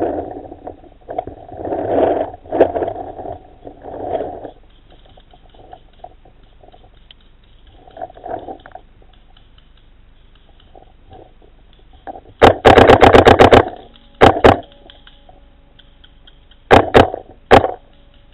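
Paintball marker firing close by: a rapid string of about a dozen sharp pops, then two short bursts of two or three and a last single shot. Before the shots, muffled scraping and rustling of the player moving behind the bunker.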